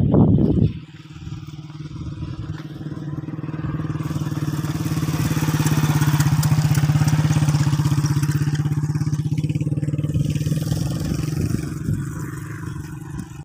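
Motorcycle engine running at a steady pace, growing louder toward the middle and fading near the end. A short loud noise comes just before it.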